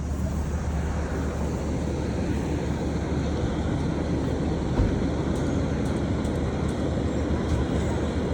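Steady low rumble of vehicle and traffic noise, with a single brief knock about halfway through.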